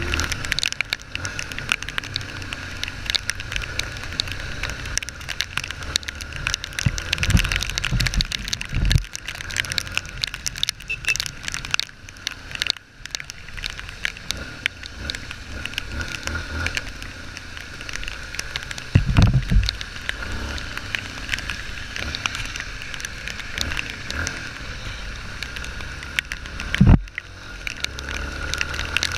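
Motorcycle riding in rain: a steady engine rumble under a dense crackle of raindrops and wind hitting the camera housing, with a few low thumps.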